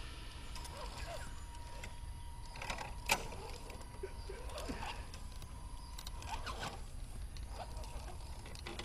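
Small electric RC rock crawler, an SCX10-based truck with a Land Rover Marauder body, whirring faintly as it picks its way over rocks, with scattered clicks and knocks of tyres and plastic on stone. The sharpest knock comes about three seconds in.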